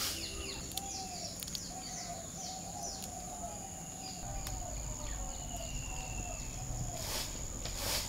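Outdoor garden ambience: an insect's steady high-pitched drone, with a bird repeating a short low note about twice a second and other birds twittering. Two sharp clicks near the end.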